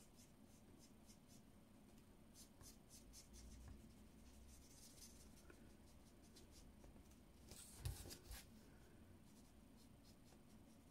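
Faint scratching of a felt-tip marker colouring on paper in quick short strokes, with a single soft knock about eight seconds in.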